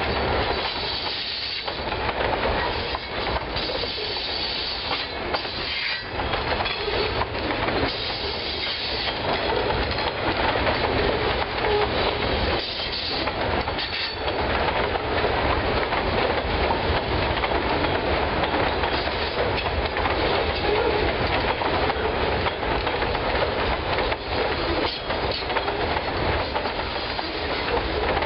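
Covered hopper cars of a freight grain train rolling past, steel wheels clicking over rail joints in a steady clickety-clack. A high wheel-flange squeal comes and goes in the first half.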